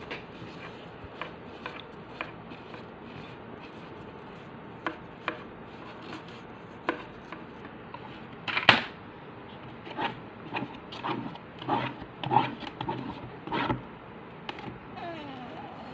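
Rubbing and scraping strokes against a cardboard box as its inside wall is colored blue, coming in a run of strokes in the second half. Scattered light taps come before it, and one sharp knock a little past the middle is the loudest sound.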